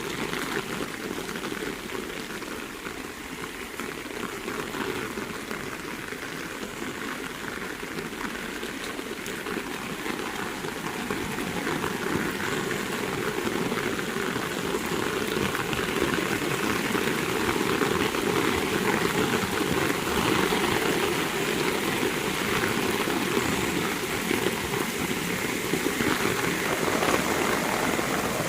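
Heavy rain falling steadily, a dense even hiss that grows louder around the middle and then holds.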